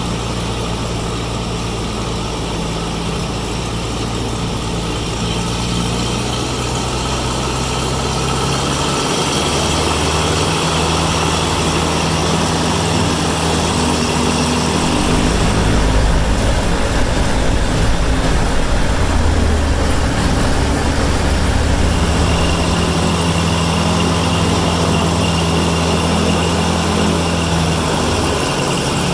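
Rotax 912iS four-cylinder engine of a Van's RV-12iS running with the propeller turning, on its first run. The engine speed shifts several times and the engine gets louder about halfway through.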